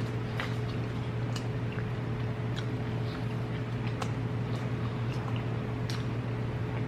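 Close-miked eating sounds: chewing and wet mouth noises, with scattered small clicks, over a steady low hum.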